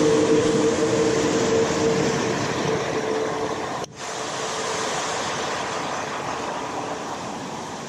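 Water pouring down a sloped concrete spillway into a churning channel: a steady, loud rush. Over it, through the first half, a steady droning hum that fades out from about four seconds in.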